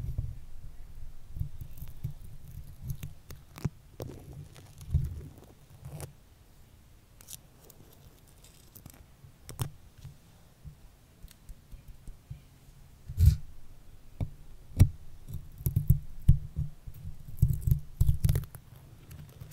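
Stickers being pressed onto and peeled off a microphone up close: irregular sticky crackles and taps with soft thumps of handling. They grow louder and denser in the second half.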